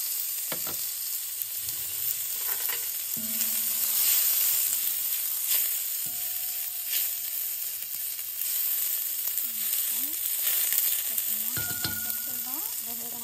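Sliced onions and chili flakes sizzling steadily in oil in a stainless steel Saladmaster pan as they are sautéed, with the spatula clicking and scraping against the pan now and then.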